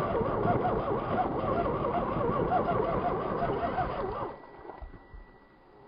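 Electric motor and gearbox whine of an RC scale rock crawler driving through snow, its pitch wavering up and down with throttle and load. The whine stops about four seconds in, leaving only a faint background.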